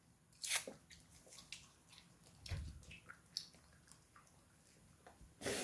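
Quiet, scattered chewing and mouth sounds of children chewing gum, with small handling clicks. A short noisy rush comes about half a second in and again near the end, and a low bump around the middle.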